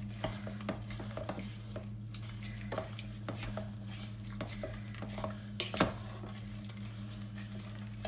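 Wooden spoon stirring a thick mix of dried fruit, margarine and sugar in a stainless steel pot, with irregular scrapes and light knocks against the pot and one sharper knock about three quarters of the way through. A steady low hum runs underneath.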